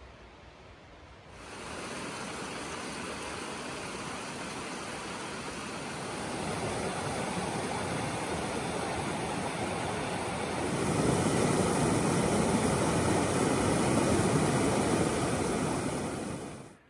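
Waterfall: the steady rush of falling water, coming in about a second in, growing louder in two steps and cutting off near the end.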